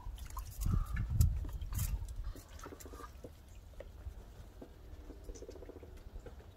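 Muscovy ducks splashing and dabbling in a shallow tub of water, with small clicks and drips. It is busiest in the first two seconds, then quieter.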